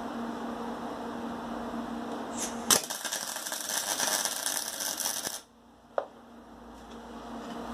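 Electric arc welder laying a tack weld to fix a nut onto a steel pipe: a sharp click, then about two and a half seconds of dense arc crackle that cuts off suddenly. A steady hum runs before the weld, and a single click follows it.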